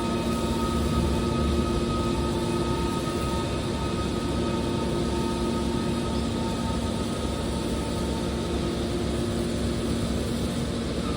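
Horizontal hydraulic metal baler running: a steady drone from its motor and hydraulic pump, with several constant whining tones over a low rumble.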